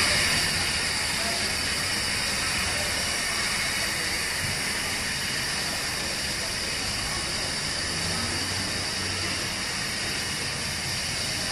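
Steady hiss of steam escaping from a standing steam locomotive.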